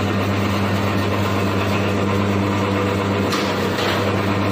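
4 HP electric wire stripping machine running with a steady hum. Two short rasps come a little past three seconds in.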